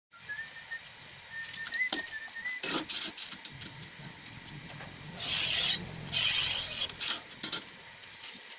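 A long straightedge bar and a tape measure handled on a polished granite slab: scattered clicks and knocks, then two scrapes about a second apart as the bar slides across the stone, the loudest sounds. A thin wavering whistle runs through the first two seconds.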